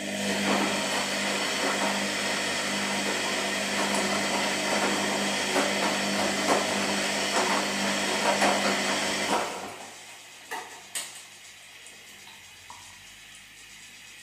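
Washing machine running: a steady motor hum under a rough, rattling mechanical noise, which stops about two-thirds of the way through. A quieter hum remains, with a couple of clicks just after the stop.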